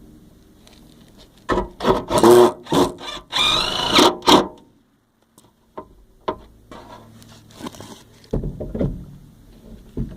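Weatherboard being sawn by hand: a run of loud rasping strokes for about three seconds, then a short pause and fainter scraping and knocks.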